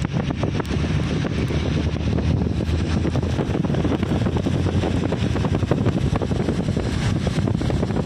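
Wind buffeting the microphone over the low rumble of a car driving on a wet road, with scattered small ticks throughout.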